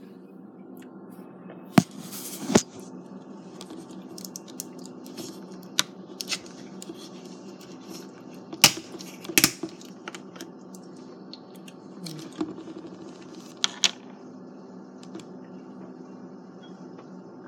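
Handling noise of the recording phone: scattered sharp clicks and knocks, a few of them loud, with faint rubbing over a steady low hum.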